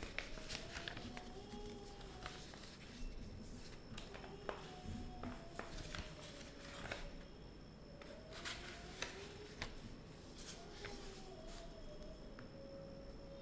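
Paper rustling and crinkling in a series of short strokes as a sheet is folded into pleats and the creases are pressed down by hand, over a faint wavering tone.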